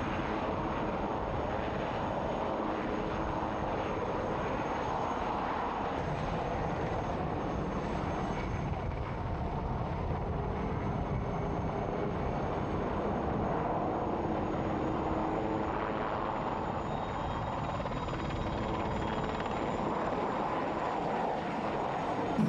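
RAF Puma HC1 helicopter's rotor and twin turbine engines running steadily in flight, hovering with an underslung vehicle on its cargo hook and then flying close by. A faint high whine sits above the rotor noise.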